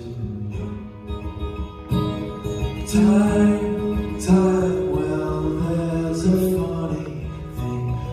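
A man singing a slow song while strumming an acoustic guitar, in a live solo performance.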